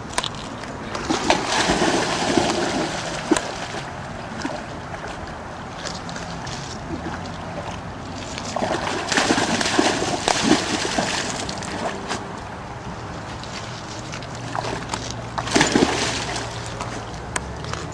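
A dog swimming and splashing through water, with three louder spells of splashing: about a second in, about nine seconds in, and about fifteen seconds in.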